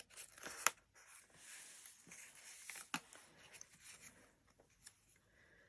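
Faint rustling of paper sticker sheets being handled, with a few light ticks.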